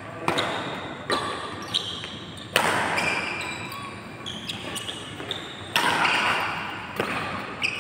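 Badminton rally: a string of sharp racket-on-shuttlecock hits, about seven, with a pause of about three seconds near the middle, each ringing briefly in a large echoing hall.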